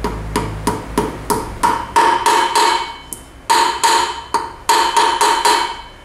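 Hammer tapping a greased part carefully into the hub of a motorcycle front wheel: steady metal-on-metal taps, about three a second, each one ringing, with a short pause near the middle.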